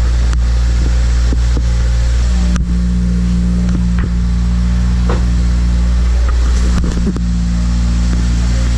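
Toyota Celica engine idling steadily just after catching on its first start after a long sit. A few faint clicks sound over the idle.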